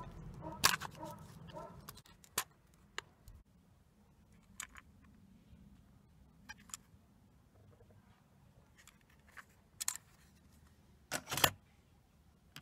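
Scattered short plastic clicks and taps as a cassette tape is taken from its case and handled, with a louder double click near the end at the portable cassette player's open deck.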